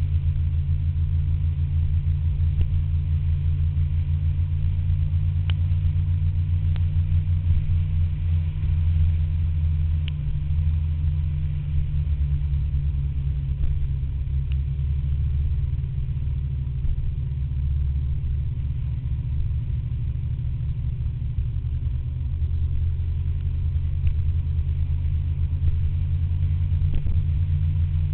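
Low wind rumble buffeting an action camera's microphone as a scooter rides at speed, with the scooter's engine running steadily underneath.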